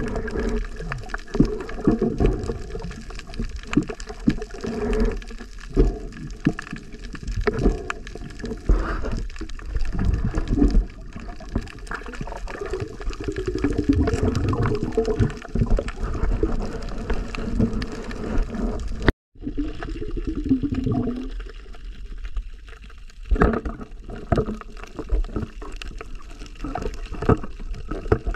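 Muffled underwater sound of water moving around a camera's waterproof housing, with frequent small knocks and clicks. The sound cuts out for a moment about two-thirds of the way through.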